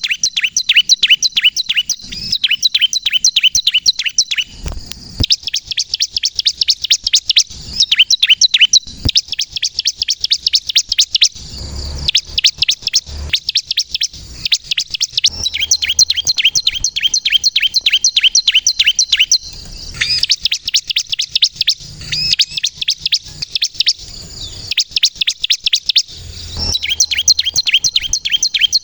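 Bar-winged prinia (ciblek) singing non-stop: rapid runs of sharp, high chirps, several a second, broken by short pauses.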